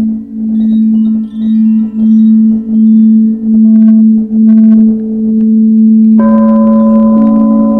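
Quartz crystal singing bowls ringing: a low steady hum that swells and fades a little more than once a second. A few brief high tinkles sound near the middle. About six seconds in, a second, higher bowl comes in with a soft rubbing hiss as it is played with a mallet.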